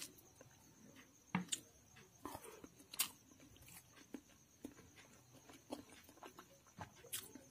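Fingers mixing cooked rice with snail curry on a metal plate: faint, irregular soft clicks and squelches.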